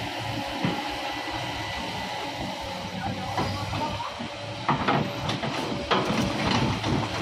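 Heavy diesel machinery running steadily with a low drone. In the second half, a run of sharp knocks and clatters sounds over it.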